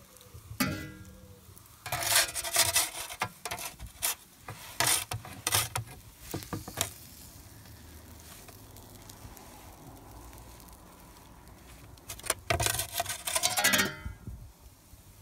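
Metal pizza peel scraping and knocking against the stone floor of a wood-fired oven as dough is slid in and moved, in two bursts of rapid scrapes, the second near the end, with some ringing from the metal. Between the bursts a quieter steady hiss.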